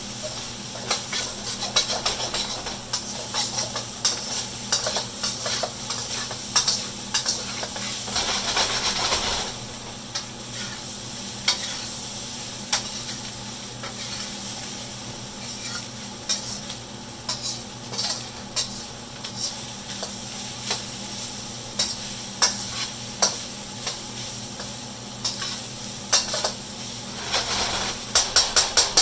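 Fried rice sizzling in a hot oiled pan while it is stirred and tossed, with a utensil scraping and clicking against the pan again and again.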